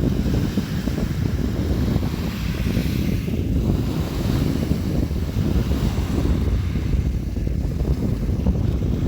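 Sea waves washing in and breaking, a continuous deep rumble with the hiss of a wave swelling a couple of seconds in. Wind buffets the microphone.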